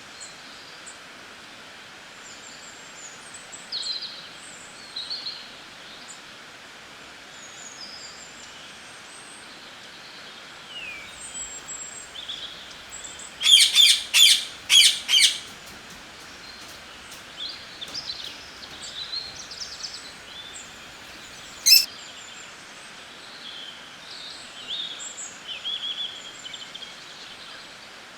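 Songbirds chirping and singing in scattered short calls, with a loud, quick run of four or five sharp notes about halfway through and a single sharp note a few seconds later, over a steady background hiss.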